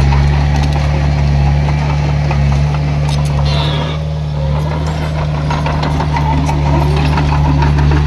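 Heavy earthmoving machine's diesel engine running steadily, with scattered metallic clanks and a brief high squeal about halfway through.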